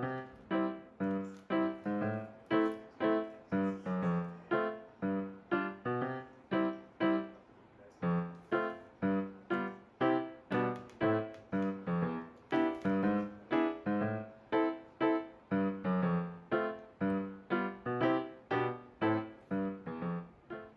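Background keyboard music: a gentle melody of single notes struck about twice a second, each one fading before the next.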